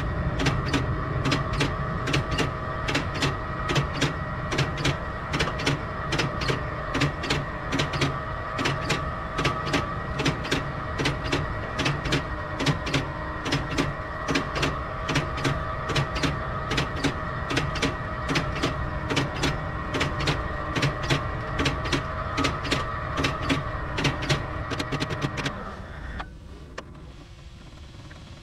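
FarmDroid FD20 solar-powered field robot running along the crop rows: a steady electric-motor whine of several tones with regular sharp clicks about twice a second. The sound stops about 26 seconds in, leaving only faint background.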